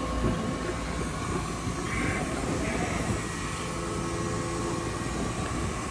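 A steady engine running at idle, with a low rumble and a faint constant whine.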